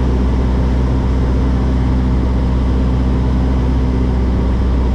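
Van's RV-14's four-cylinder Lycoming engine and propeller droning steadily at constant power, heard from inside the cockpit.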